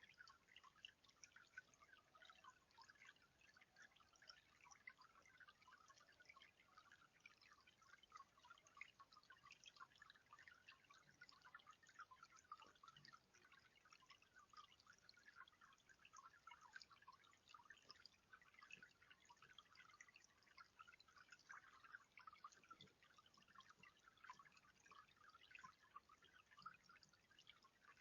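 Faint, steady dripping and trickling of water in a tiered bird bath, a dense patter of tiny drops.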